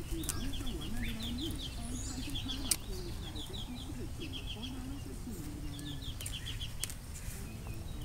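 Songbirds calling in the trees: short quick trills of four or five high notes, repeated over and over, with a low wavering hum underneath. A sharp clink of a knife or fork against a plate comes a little under three seconds in, and a fainter one near the end.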